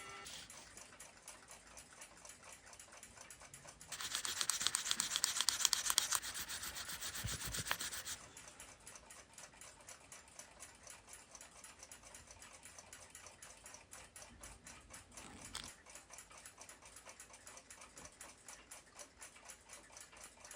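A clock ticking, fast and even. From about four to eight seconds in, a louder burst of scratchy noise sounds over it.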